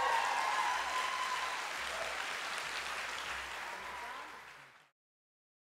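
Audience applauding, with some cheering in the first second or so. The applause dies down and cuts off about five seconds in.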